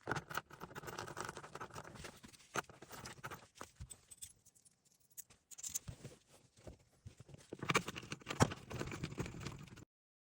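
Hands-on work noises: rustling and scraping with scattered clicks and knocks of parts and tools being handled, one sharper knock about eight seconds in. The sound cuts off abruptly near the end.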